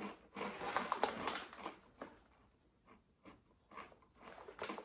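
Mouthful of crunchy Cofresh grill crisps being chewed, a run of irregular crunches that is densest in the first two seconds and then eases. Near the end the crisp packet rustles as a hand goes in for another.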